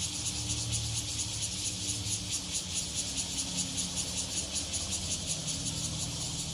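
Cicada buzzing: a steady, rapidly pulsing high rasp that holds without a break, over a faint low hum.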